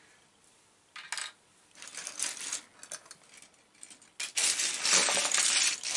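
Loose plastic LEGO bricks clicking and clattering as a hand rummages through a pile of them: a few scattered clicks at first, then a denser, louder rattle from about four seconds in.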